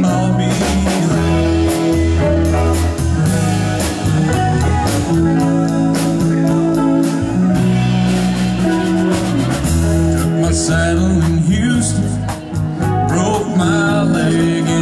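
Band music in a blues-rock style: guitar and bass holding notes over a steady drum beat, with a voice singing at times.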